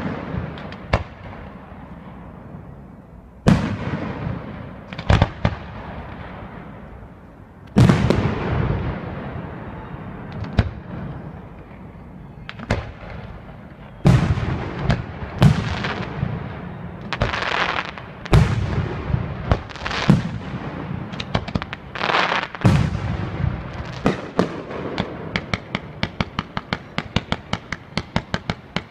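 Fireworks display: aerial shells bursting one at a time, each loud bang trailing off in a long echo. About three-quarters of the way through, the bangs give way to a rapid string of sharp cracks, two to three a second.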